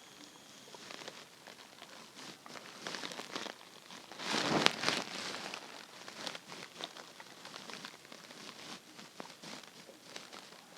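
A hungry, empty stomach gurgling: a run of small crackling pops and bubbles, with one louder gurgle lasting about a second, about four seconds in.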